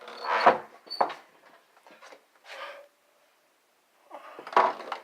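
A Chihuahua scrambling in his kennel: a few short bursts of knocking and scuffling, with a silent gap just past the middle.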